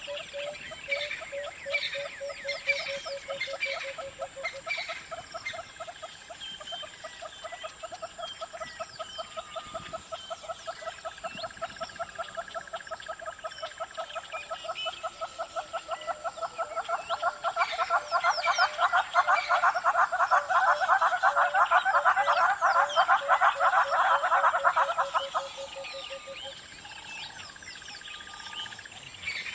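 Hornbill calling: a long run of rapid, evenly repeated notes, about five a second, growing louder and then stopping about 26 seconds in. Other small birds chirp over it, with a steady high whine throughout.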